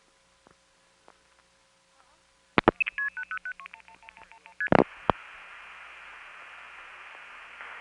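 Telephone line on a long-distance call: faint clicks, then a click and a fast string of short two-tone beeps at changing pitches as the number is sent down the trunk. A second click about two seconds later, then steady line hiss with faint high tones as the connection goes through.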